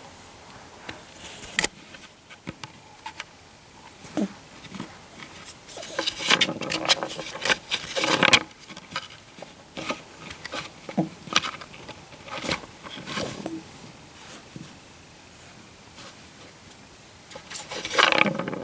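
Kitten pawing at a round cardboard ball-track toy: irregular scrapes, rubs and knocks of paws and the ball in the track. The sounds come in flurries and are loudest a few seconds in and again near the end.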